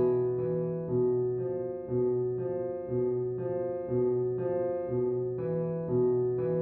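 Slow piano music: single notes struck in an even pattern about twice a second, each ringing on into the next.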